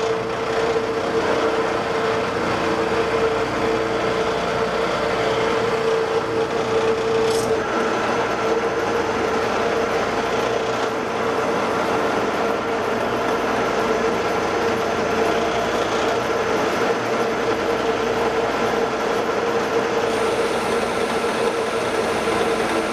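Metal lathe turning a 12L14 free-machining steel bar, the turning tool taking a cut of another hundred thousandths off the outside diameter and throwing off crisp chips. A steady machine hum under the noise of the cut, with a brief tick about seven seconds in.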